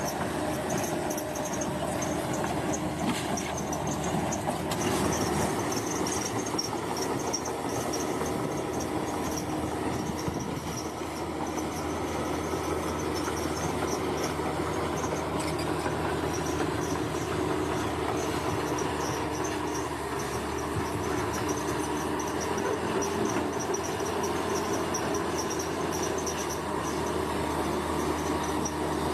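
Bulldozer's diesel engine running steadily under work, a continuous mechanical drone with a steady hum. Insects chirp in rapid high pulses over it.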